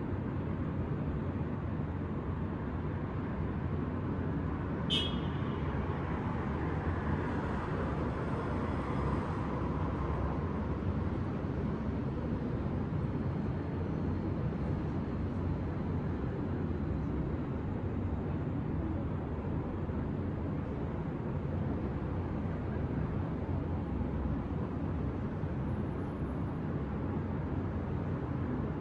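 City traffic heard from above: a steady low rumble of road traffic, with a brief sharp high-pitched sound about five seconds in and a vehicle's hiss passing by soon after.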